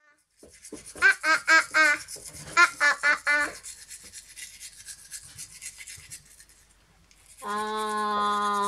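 Manual toothbrush scrubbing a young child's teeth: a fast, scratchy scrubbing hiss. In the first few seconds the child's open-mouthed voice comes out as two runs of short shaken "ah" sounds, and near the end a single steady "aah" is held for about a second and a half.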